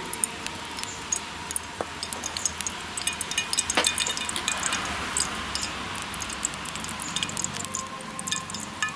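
Cooking oil poured from a small steel cup into an aluminium kadai, followed by scattered light clinks and ticks of a steel spoon and cups on a steel plate.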